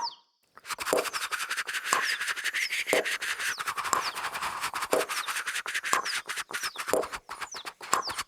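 Human beatbox voices imitating a rapid, scratchy brushing or scrubbing sound, like a toothbrush at work. A firmer pop lands about once a second, with small falling chirps here and there.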